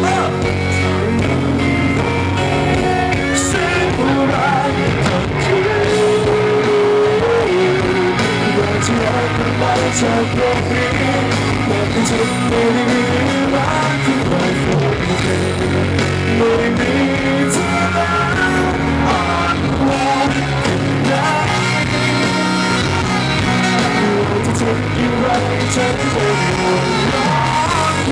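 Live concert music: a man singing into a handheld microphone over loud amplified backing music with a steady bass line.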